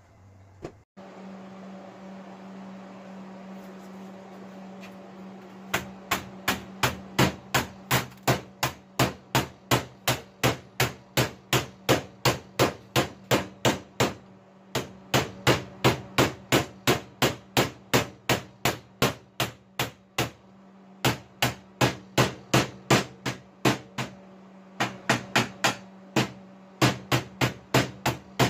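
A hand hammer striking the edge of a thin sheet-steel panel clamped to a bench, bending the edge over. The blows come in quick, even runs of about two to three a second with short breaks, over a steady low hum.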